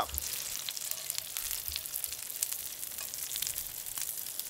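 Sea trout fillets frying in Wagyu A5 beef fat in a hot cast-iron skillet: a steady sizzle dense with fine crackles.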